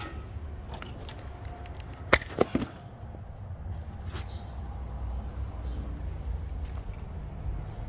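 Handling noise from a phone camera being moved around under a car: a few sharp knocks and clicks about two seconds in and faint ticks near the end, over a steady low hum.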